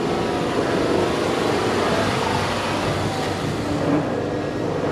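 A steady running engine with a low hum and no clear changes in level.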